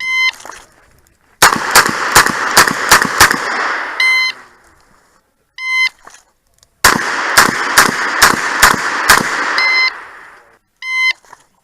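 Shot-timer beeps and two rapid strings of revolver fire from a Smith & Wesson 929 9mm: a beep, about eight quick shots, another beep; then the same again, with a last beep near the end.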